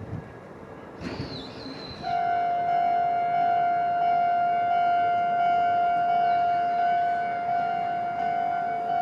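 Level-crossing warning alarm on the Toden Arakawa tram line switching on about two seconds in: a loud, steady, high tone that keeps sounding with a slight pulse, over faint street noise.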